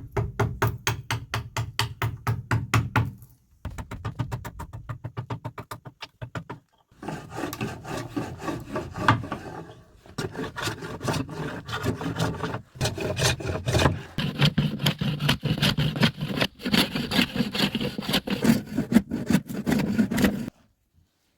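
Fast, even back-and-forth rubbing strokes on wood, like hand sanding or scraping an old wooden door, about four to five strokes a second. The sound comes in several short stretches that break off abruptly.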